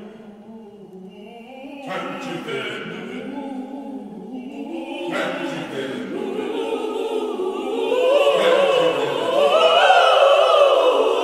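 Mixed choir singing a spiritual a cappella, holding long chords with no clear words. It starts soft, comes in fuller about two and five seconds in, and swells to its loudest near the end.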